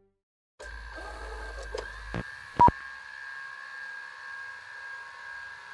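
Electronic logo ident sound effect: a steady buzzing hum with several held high tones, starting about half a second in, crossed by a few sharp clicks and one loud short beep a little after two seconds in.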